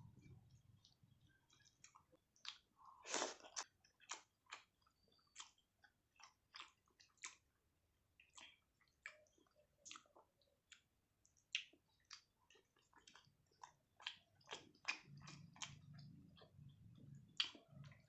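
Close-up mouth sounds of a person chewing a mouthful of rice with curry: soft, wet, irregular clicks and squelches, with a few sharper smacks.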